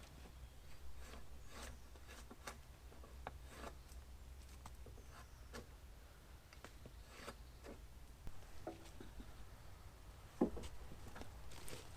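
Faint, irregular scraping strokes of a draw knife peeling bark off a fresh cedar log, with one sharper knock about ten and a half seconds in.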